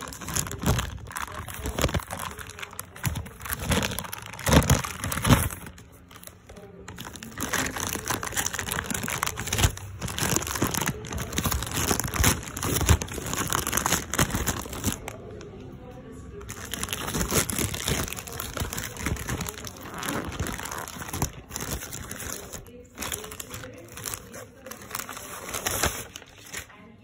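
Plastic shipping mailer crinkling and rustling in irregular bursts as it is handled and opened by hand, loudest about four to five seconds in.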